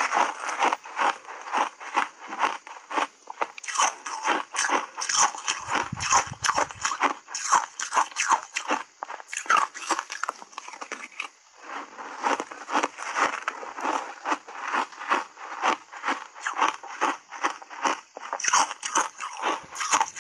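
Close-miked crunching and chewing of slushy shaved ice coated in matcha powder, taken in big bites: a steady run of crisp, wet crunches, with a short pause about halfway through.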